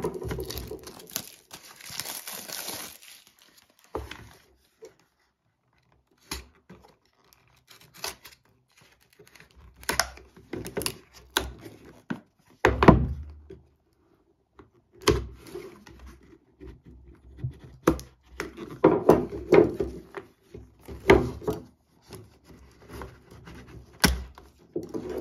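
Plastic shrink-wrap crinkling as it is torn off a cardboard box, followed by scattered knocks, taps and scrapes as the box is turned over and set down on a wooden table and a knife slits its tape seal. The loudest thump comes about halfway through.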